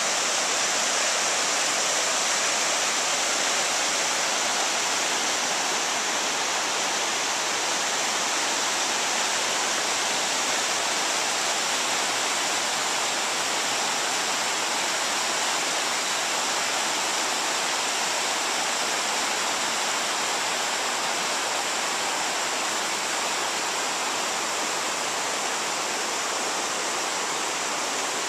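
Shallow river running over stones and small rapids: a steady, even rush of water.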